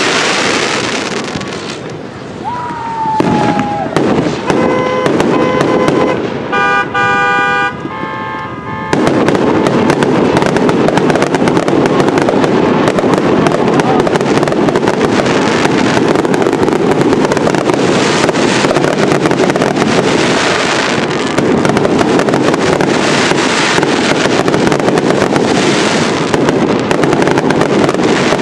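Consumer fireworks finale: loud, dense bangs and crackle from aerial shells and cakes. A short falling whistle comes about three seconds in, and car horns honk for a few seconds before a continuous barrage takes over from about nine seconds.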